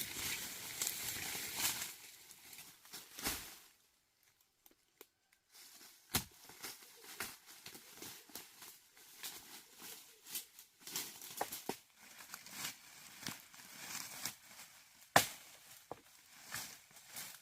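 Rustling and crinkling handling noise with many scattered clicks and snaps, broken by a brief near-silent gap a few seconds in.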